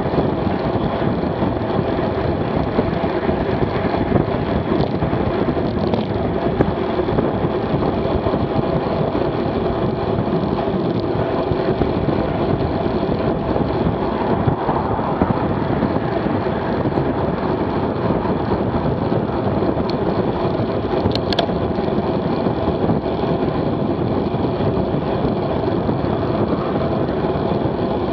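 Steady rush of wind and tyre noise on a bike-mounted action camera's microphone as a road bike rides at about 27 mph.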